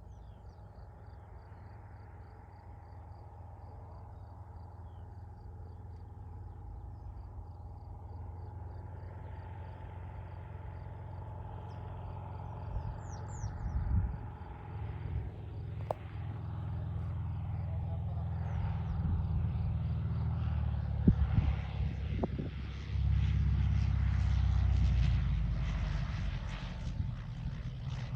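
Cessna 172RG light aircraft approaching, its engine and propeller sound growing steadily louder over crickets chirping. Several knocks come in the last half, and a louder stretch of rumbling fills the last few seconds.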